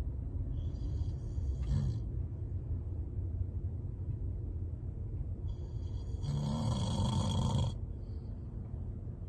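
A person snoring: two snoring breaths, a short one near the start and a longer, louder one about two seconds long later on, each with a whistly edge, over a steady low rumble.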